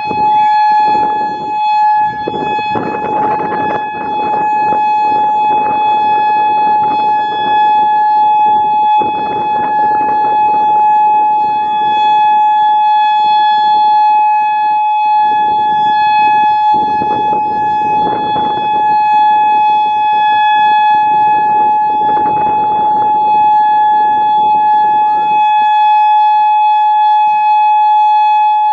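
Federal Signal Modulator 4016B outdoor warning siren sounding its steady alert signal: one loud tone held at a constant pitch. A rushing noise rises and falls beneath it and drops away near the end.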